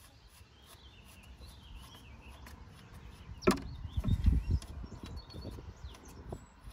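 A sharp metallic click about halfway through, then a few dull knocks and small clicks, as a hex key is worked into the 8 mm fill plug on the manual transmission's case.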